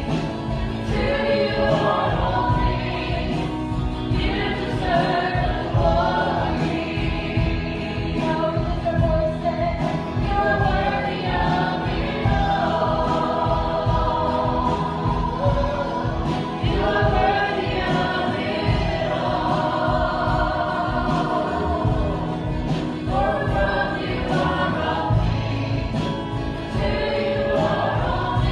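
Christian worship song: a group of voices singing with band accompaniment over a steady beat.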